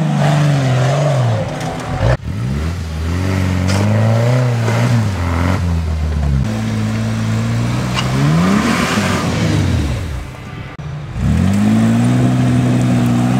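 Off-road 4x4 vehicle's engine revving up and down repeatedly under load, its pitch rising and falling. The engine briefly drops off about two seconds in and again about ten seconds in.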